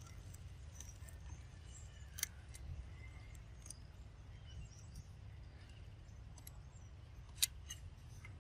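Quiet outdoor ambience: a steady low rumble with faint bird chirps and a few sharp clicks, the loudest one about seven seconds in.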